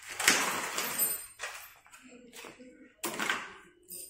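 Short bursts of rustling and scraping: a plastic bag of assembly screws being opened and handled.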